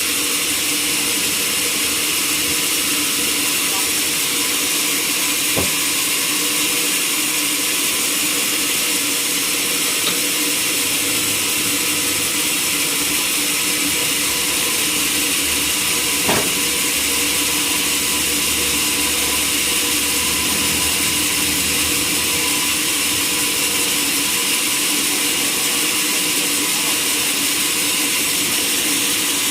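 Machinery running steadily: an even hiss with a constant hum under it, and two faint clicks.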